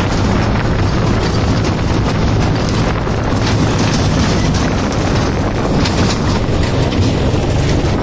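John Deere 5045D tractor's three-cylinder diesel engine running steadily at road speed, with road and rushing-air noise and the towed trailer rattling along behind.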